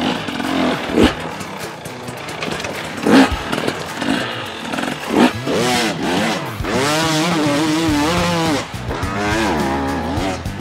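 Husqvarna 300cc two-stroke enduro motorcycle engine revving hard and unevenly as it is ridden up a rocky climb, the pitch swooping up and down with each blip of the throttle and holding steady for a couple of seconds near the middle. A few sharp knocks come in the first half.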